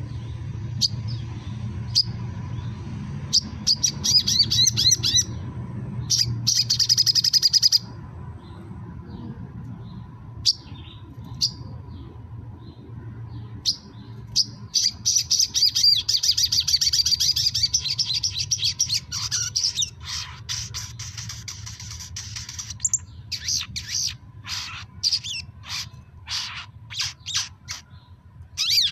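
Olive-backed sunbird singing: bursts of rapid, high twittering trills with sharp single chirps between them, and a string of separate calls near the end. A steady low hum runs underneath.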